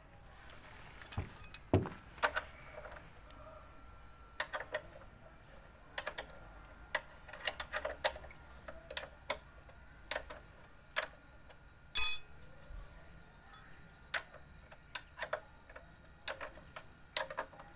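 Irregular metallic clicks and taps of a hand spanner working the motorcycle's front brake caliper mounting bolts, with one loud ringing clink of metal on metal about twelve seconds in.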